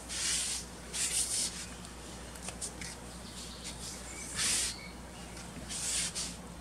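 Four short swishes as a wooden jo staff is swung through practice strikes: one at the start, one about a second in, one past four seconds and one near six seconds.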